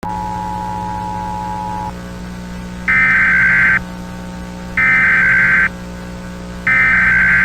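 Mock Emergency Alert System tones: a steady tone for about two seconds, then three short bursts of the digital SAME header data tones, each a little under a second long and about two seconds apart. A steady low hum runs underneath.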